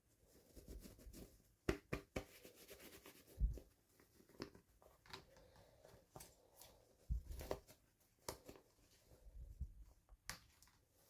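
Hands unboxing small toys: faint, irregular rustling of packaging with scattered clicks and taps.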